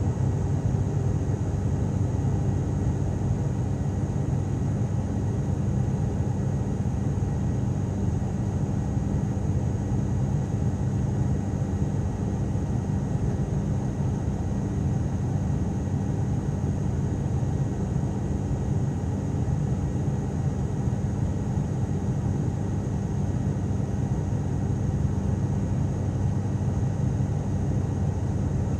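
Cabin drone of an ATR twin-turboprop airliner in flight: a steady, deep hum with a few constant low tones, and a faint steady high whine above it.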